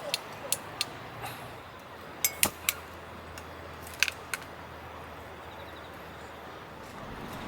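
Light, sharp clinks and taps of small hard objects, about a dozen in small clusters, in the manner of dishes and utensils being handled.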